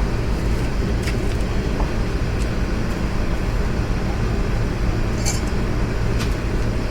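Steady low hum and hiss with no change in level, with a few faint light clicks about one, two and a half, and five seconds in.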